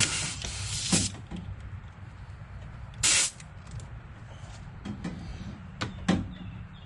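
Refrigerant hissing at the recharge hose's quick-connect coupler on the low-pressure A/C port: a hiss lasting about a second, then a shorter one about three seconds in. A few sharp plastic clicks follow near the end.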